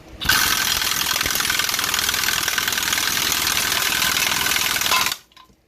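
Impact wrench hammering steadily on a hub puller's forcing screw, drawing a rusted-in, press-fit rear wheel hub out of its backing plate. It runs for about five seconds and then stops suddenly.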